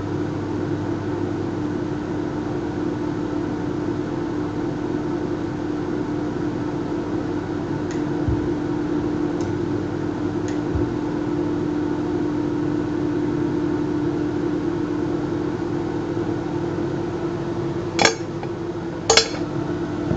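Steady electrical hum of a homemade spot welder and metal melter built from a microwave oven transformer running under power. A few faint ticks come midway, and two sharp cracks about a second apart come near the end.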